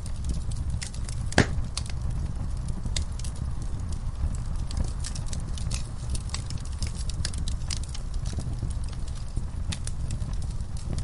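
Wood fire in a fireplace crackling, with many small sharp pops over a steady low rumble of the flames and one louder crack about a second and a half in.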